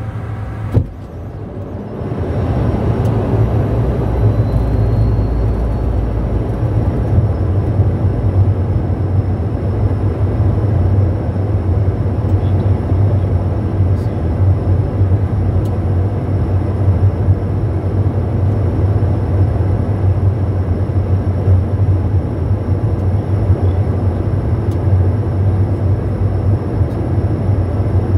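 Cockpit noise of a Bombardier Challenger 350 business jet in flight on approach: a steady, loud rush of airflow with a low hum. There is a sharp click about a second in, and about two seconds in the noise steps up louder and then holds even.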